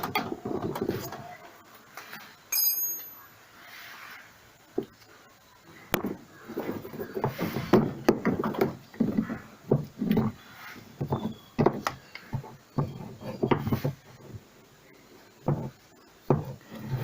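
Hands fitting and screwing in parts of a washing machine's gear assembly: irregular knocks, clatter and scraping of parts, with a brief high squeal about two and a half seconds in.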